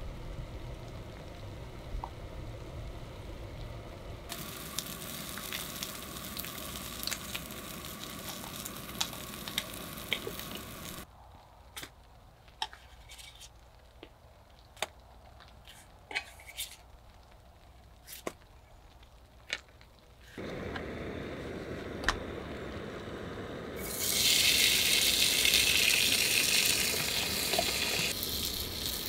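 Slices of Spam sizzling as they fry in a small skillet on a Jetboil camp stove, with sharp clicks of a utensil against the pan. Near the end, chopped vegetables go into the hot pan and set off a much louder, harsher sizzle.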